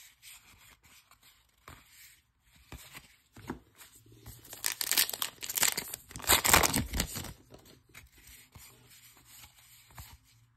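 A Topps Allen & Ginter baseball card pack wrapper being torn open and crinkled by hand, a noisy rip in two stretches about halfway through. Fainter rustling of cards is heard before and after.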